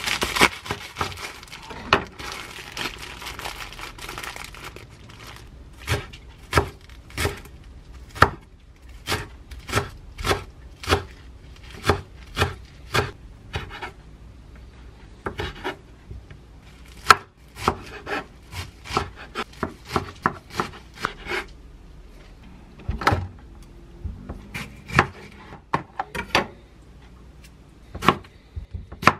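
Kitchen knife chopping on a wooden cutting board in many sharp, irregular knocks, some in quick runs, as it cuts enoki mushrooms, garlic chives and a tomato. In the first few seconds the plastic wrapper of the enoki bag crinkles as the knife cuts through it.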